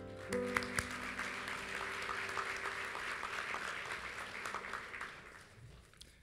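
An audience applauding over background music with held chords; the clapping swells up just after the start and dies away near the end.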